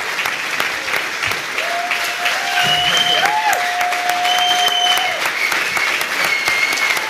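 An audience applauding steadily in a hall, a dense patter of many hands clapping. A few long held calls from the crowd ride over the clapping from about two to five seconds in.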